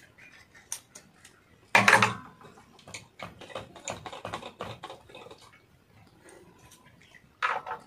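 Quick, light clicks and taps of a thread spool and small parts being handled on a sewing machine while it is threaded. A short louder sound comes about two seconds in and again near the end.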